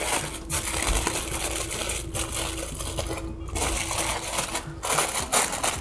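Aluminium foil crinkling as it is folded and pressed closed around cooked steaks to rest, in several spells with short breaks. A faint steady hum runs underneath.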